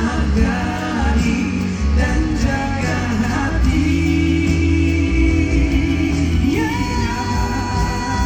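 Live pop ballad played by a full band, with singing that holds long notes.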